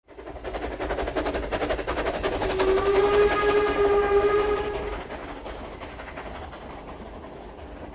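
Steam locomotive chuffing quickly, with its steam whistle blowing one long note from about two and a half seconds in to about five seconds in; after that the chuffing fades away.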